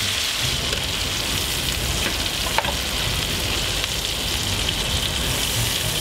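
Whole shell-on shrimp frying in butter and garlic in a pan: steady sizzling and crackling, with one sharp tick about two and a half seconds in.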